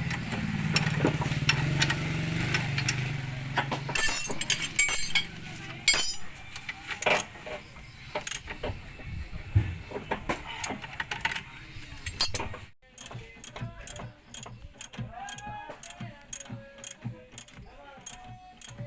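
Hand tools clinking and knocking on metal in irregular strokes, as in work on a van's suspension and steering parts, with a steady low hum in the first few seconds.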